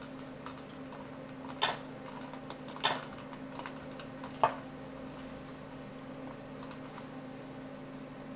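Three sharp computer mouse clicks, about a second and a half apart, with a few fainter ticks, as a chess piece is picked up and moved on screen; a steady low hum runs underneath.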